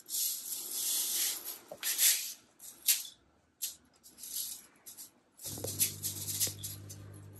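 A seasoning shaker shaken over a bowl of chicken, in a string of short shakes with gaps between. A low steady hum comes in about five and a half seconds in.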